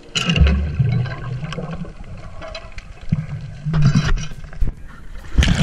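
Water sloshing and bubbles gurgling, heard muffled through an underwater camera housing, with a deep rumble of water movement. Louder splashy bursts come near the start, about four seconds in, and at the very end.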